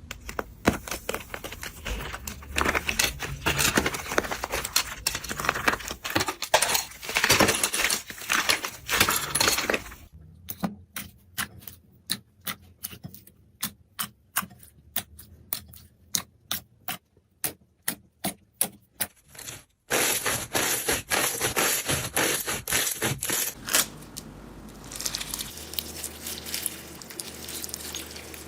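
Slime being pressed and squeezed by hand, making crackling clicks and pops. It starts as dense crackling, then becomes separate sharp pops a few times a second, then turns to dense crackling again, and near the end softens to a quieter rustle.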